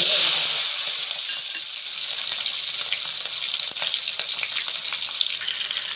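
Peeled shallots hitting hot sesame oil with mustard, fenugreek and cumin seeds: a sudden loud hiss that settles into a steady sizzle with faint crackles, while a steel ladle stirs them in the pan.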